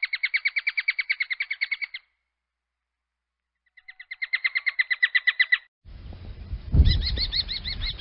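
Common kestrel calling: a rapid run of high, sharp repeated notes stops about two seconds in, and after a pause a second run follows. Near the end, over a low background rumble, a slower series of calls begins at about six notes a second.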